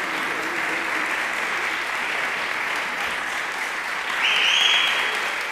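Audience applauding steadily, with a brief shrill high-pitched sound cutting through it about four seconds in.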